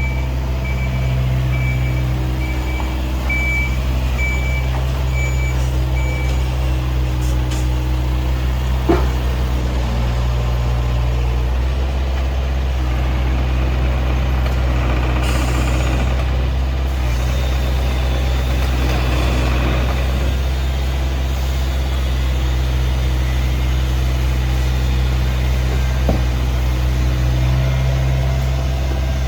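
Takeuchi TB250 mini excavator's diesel engine running steadily, with a high-pitched warning beeper sounding in repeated short beeps for the first several seconds. A sharp knock comes about nine seconds in, and a fainter one near the end.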